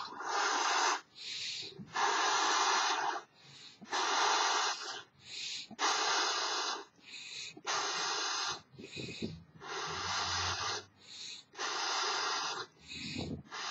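A man blowing up a large elephant-shaped balloon by mouth: a long breath pushed into the balloon about every two seconds, with a short quick breath drawn in between each one.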